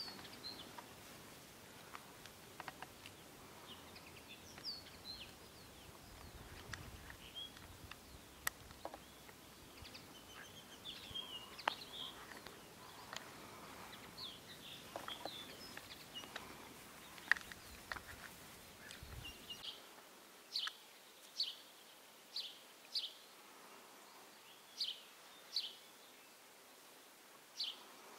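Outdoor ambience with birds chirping, short high calls scattered throughout and a few sharp clicks. From about twenty seconds in, the calls come in pairs every second or two over a quieter background.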